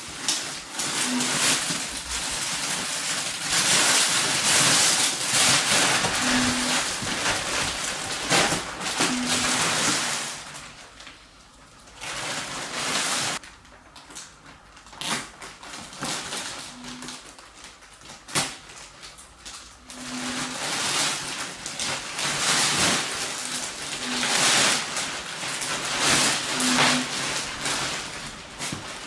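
Clear plastic vacuum-pack sheeting crinkling and rustling as it is pulled off a memory foam mattress, in uneven bursts with a quieter stretch in the middle.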